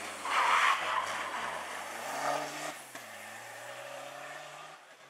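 Rally car passing close at speed and pulling away. The engine is loudest about half a second in as it goes by. Its pitch drops abruptly about three seconds in, then the sound fades into the distance.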